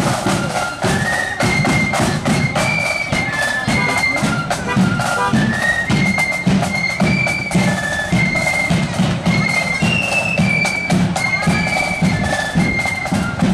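Marching flute band playing a tune on the move: a high flute melody stepping from note to note over a steady beat of drums.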